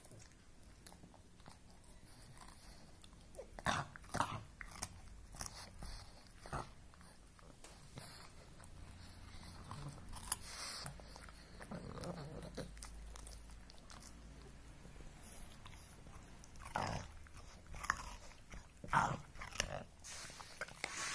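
Pug gnawing on a raw carrot: irregular bites and crunches, with a few louder crunches among quieter chewing.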